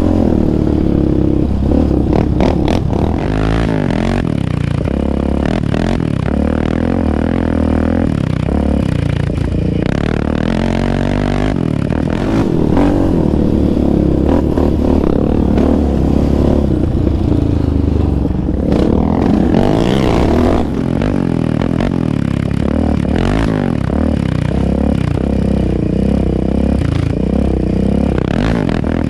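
Yamaha Raptor 700R ATV's single-cylinder engine, fitted with an aftermarket exhaust, running loud under way on a dirt trail, its revs rising and falling with the throttle. Short knocks and clatter come through as the quad rides over bumps.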